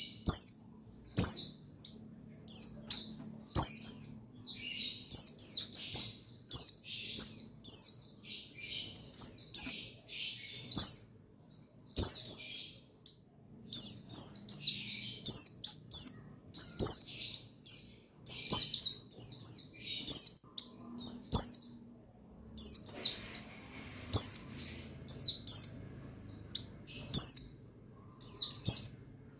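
Pleci buxtoni white-eyes chirping in rapid, high, downward-sweeping twittering phrases, one after another with short gaps, and a few faint clicks between them.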